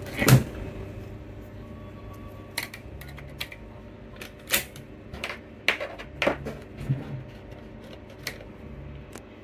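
About ten irregular sharp clicks and taps as a laptop SO-DIMM RAM module is handled and pressed into its slot on the motherboard.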